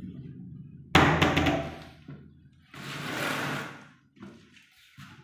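Wardrobe doors being worked and shut: a sudden loud bang about a second in, a longer scraping noise around three seconds, then a few light knocks near the end.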